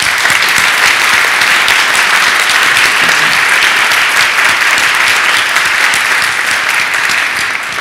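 Congregation applauding: a steady round of many people clapping that starts at once and tapers off near the end.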